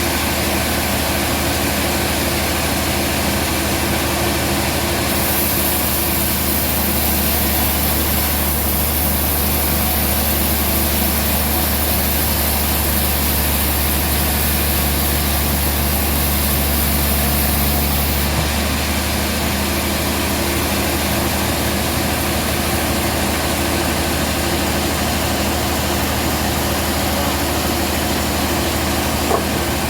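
Band sawmill running steadily with a deep hum. A high hiss joins from about five seconds in and drops away at about eighteen seconds.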